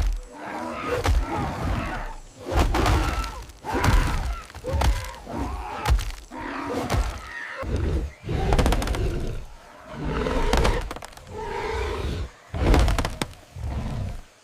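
A series of heavy thuds and knocks coming irregularly, about a dozen of them.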